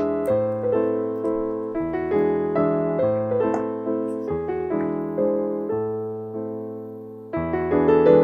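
Background piano music: a gentle melody of single notes over chords, the last chord fading out before a new phrase begins near the end.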